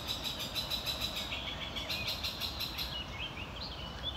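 Songbirds singing: a fast, even run of repeated high notes for about three seconds, then short chirps that bend up and down in pitch.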